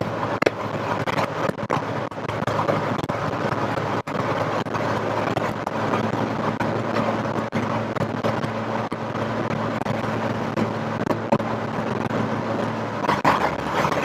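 Rover Metro's 1.8 VVC K-series four-cylinder engine running at a steady cruise, heard from inside the car with tyre and road noise. The engine note holds steady, then changes about a second before the end. The recording is rough and poor through a GoPro external mic.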